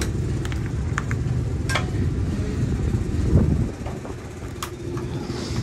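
Steady low engine drone, with a few short sharp clicks and knocks from gear being handled and a brief louder swell of the rumble a little past the middle.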